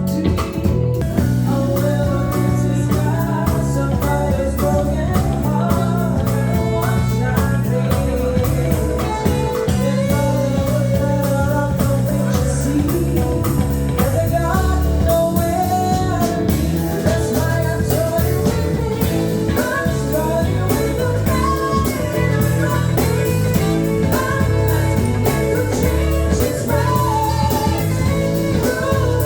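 Blues-rock band music with a singer and guitar, playing steadily throughout.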